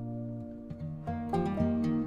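Background music on a plucked string instrument, with held notes fading and then a new run of plucked notes about a second in.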